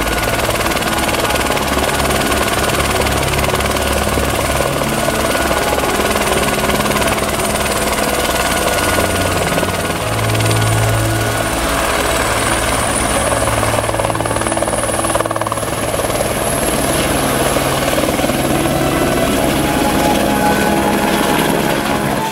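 Eurocopter AS350 Écureuil rescue helicopter running with its rotor turning: a steady, loud turbine and blade sound. A high turbine whine rises in pitch about halfway through as the engine is powered up.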